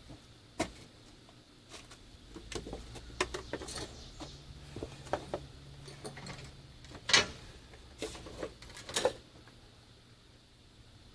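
Irregular metallic clinks and knocks of hand tools being handled against metal, with a low hum in the middle; the sharpest knock comes about seven seconds in, and the sounds stop about nine seconds in.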